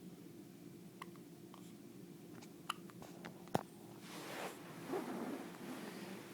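Quiet handling noise: a few small clicks and one sharper tap about three and a half seconds in, then a second or two of rustling.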